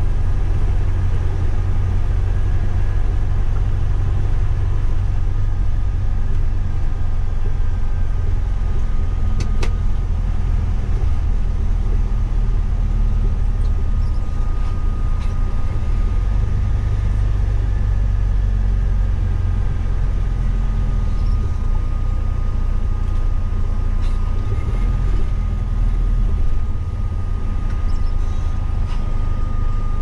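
Intercity coach driving on a wet highway, heard from the driver's cab: a steady low engine and road rumble. A thin steady whine joins about a third of the way in, with a single click about ten seconds in, and the rumble eases slightly near the end as the coach slows for a toll booth.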